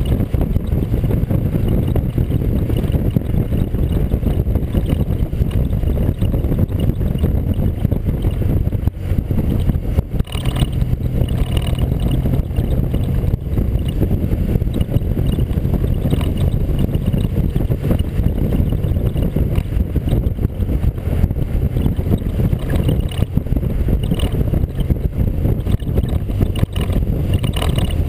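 Wind buffeting the microphone of a camera mounted on a moving vehicle, over a steady engine drone as it rides at road speed, with a brief dip about a third of the way in.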